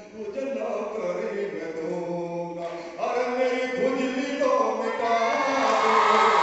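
A man singing verse in a held, chant-like melody into a microphone through a hall PA. It grows louder about three seconds in and again near the end.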